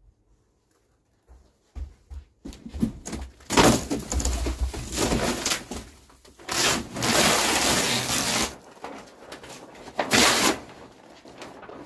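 Ceiling panelling being pried and torn down with a long bar, cracking and ripping loose while debris falls, in rough bursts. It starts about two seconds in, runs in two long loud stretches, and ends with a short burst near the end.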